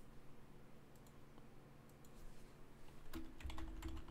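Faint typing on a computer keyboard: a few scattered key taps at first, then a quicker run of keystrokes in the last second or so.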